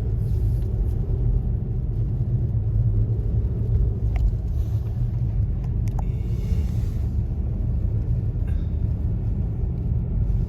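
Steady low rumble inside the cab of a Toyota Tacoma pickup on the move: engine and road noise from its worn all-terrain tyres. A couple of faint clicks are heard about four and six seconds in.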